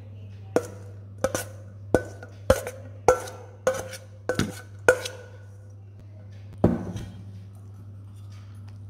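Spoon knocking and scraping against a stainless steel bowl as fried chicken pieces are tipped out onto a plate: about ten sharp, briefly ringing knocks in quick succession, then one more after a pause, over a steady low hum.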